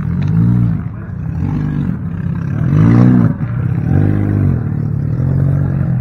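An engine revs up and down about once a second over the steady run of another idling engine.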